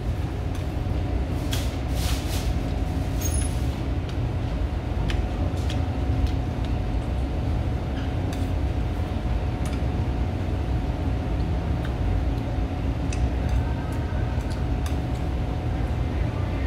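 A steady low rumble with a faint constant hum, and now and then light clicks of chopsticks against a bowl as a man eats, a few of them close together in the first seconds.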